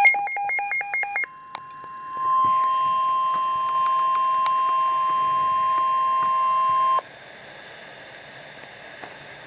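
Emergency Alert System warning on NOAA Weather Radio: the last of the rapid chirping digital header bursts, then a steady single-pitch warning tone near 1050 Hz. The tone starts about two seconds in and cuts off sharply about seven seconds in, leaving radio static hiss.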